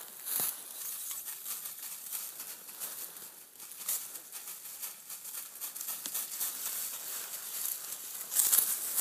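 Footsteps crunching and rustling through dry fallen leaves on a forest floor, in an irregular walking rhythm, with louder crunches near the end.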